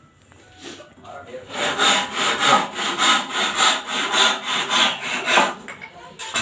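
Hand saw cutting across a wooden frame rail in quick back-and-forth strokes, about three a second. It starts about a second and a half in and stops shortly before the end.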